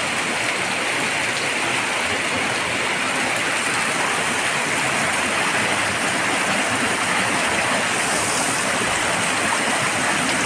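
Heavy rain pouring down onto a flooded street: a steady hiss of rain striking standing water.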